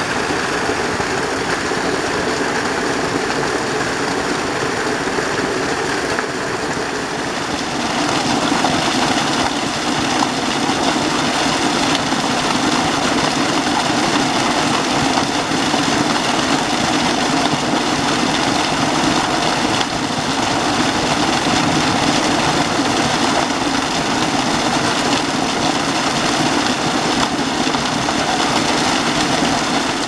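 Small waterfall on a forest stream pouring down a rock face and splashing onto the stones below: a steady rush of falling water that grows a little louder and fuller about seven seconds in.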